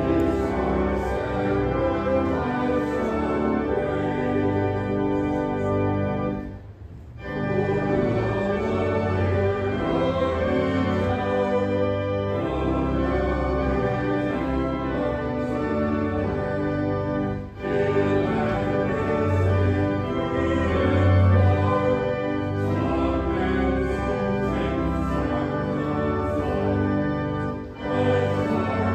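Organ music with sustained chords over low bass notes, broken by short pauses between phrases about 7 and 17 seconds in.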